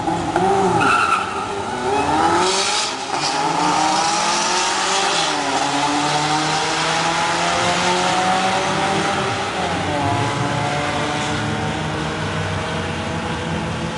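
Subaru WRX and Hyundai Elantra GT launching off a drag-strip start line and accelerating hard away down the strip. The engine note climbs steadily and drops back at each upshift, about three times.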